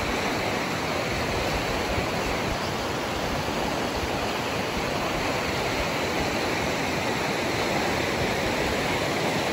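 Steady rushing of a shallow, fast mountain creek running over rocks and riffles.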